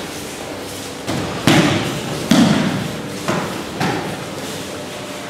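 Aikido practitioners landing breakfalls on tatami mats: about five heavy thuds and slaps a second or less apart, each dying away quickly.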